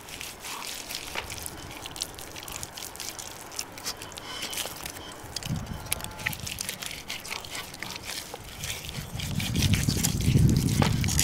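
Wet squelching and slapping of hands kneading marinade into raw ribs: many small, sharp wet clicks. A louder low rumble swells up near the end.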